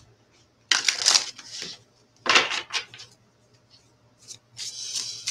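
A deck of oracle cards being shuffled by hand: three short bursts of card noise, about a second in, just past two seconds, and near the end.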